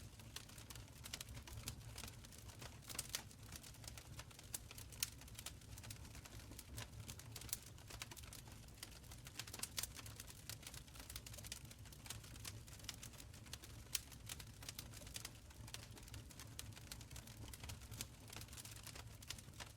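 Wood fire crackling in a stone fireplace: frequent irregular sharp pops and snaps over a low steady rumble of the flames, with a few louder pops, about three seconds in, about five seconds in, and near fourteen seconds.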